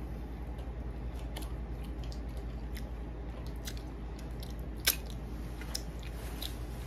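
Close-up sounds of a person chewing food: wet smacks and small clicks of the mouth, with one sharper click about five seconds in, over a steady low hum.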